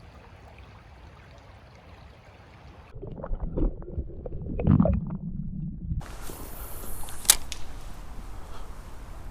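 Faint steady creek flow, then about three seconds in an abrupt stretch of loud, muffled sloshing and gurgling water, as if heard underwater, before the steady flow returns with one sharp click.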